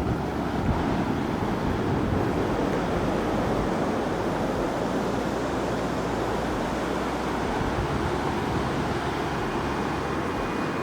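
Ocean surf washing onto a sandy beach: a steady rush of breaking waves, with some low wind rumble on the microphone.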